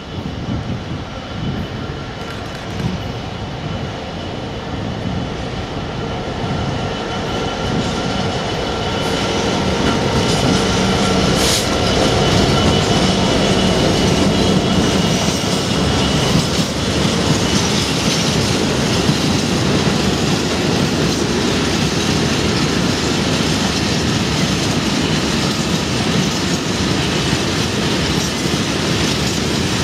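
Colas Rail Class 66 diesel freight locomotive approaching and passing, its EMD two-stroke V12 engine running, growing louder over the first dozen seconds. Then a long rake of covered steel wagons rolls by, a steady loud run of wheels on rails.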